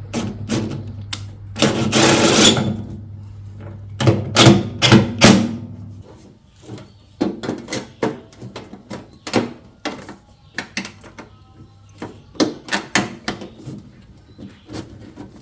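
A string of sharp knocks and clanks from sheet-metal duct pieces being handled and fitted together, with a longer rasping noise about two seconds in. A low hum runs underneath and stops about six seconds in.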